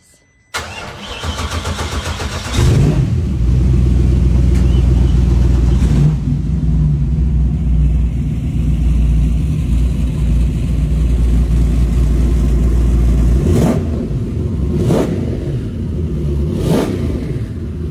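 Twin Mercury Racing 1350 dual-cal twin-turbocharged V8 marine engines starting up, the sound stepping up louder about two seconds later and settling into a loud, steady low rumble. Near the end the engines are revved three times in short blips.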